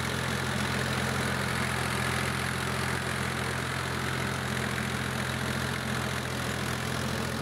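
New Holland Ghazi tractor's diesel engine running steadily at an even speed.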